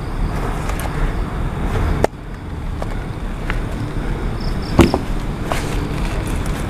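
Clicks and rustling from handling inside a tent, over a steady low hiss, with one louder click a little before five seconds in.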